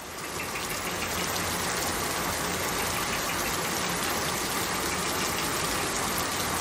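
Steady rain, an even hiss with a low rumble underneath, rising in over the first half second.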